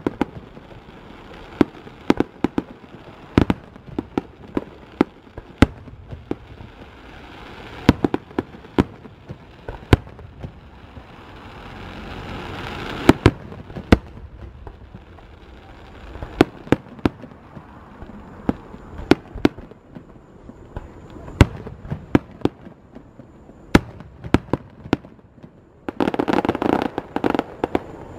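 Aerial fireworks shells bursting overhead: an irregular string of sharp booms, dozens in all, some in quick clusters. Near the end comes a denser stretch of continuous noise for about two seconds.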